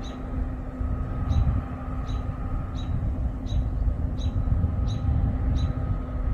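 Steady mechanical hum of distant farm machinery under a gusty low rumble of wind on the microphone, with short high chirps repeating about once or twice a second.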